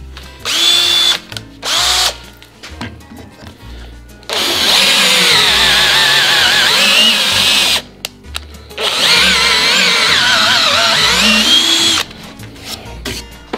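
Cordless drill turning a 1.5-inch wood-threading tap into a bored hole in soft maple, cutting wooden threads for a nut. It gives two short bursts at the start, then runs twice for several seconds under load, its motor pitch wavering as the tap bites.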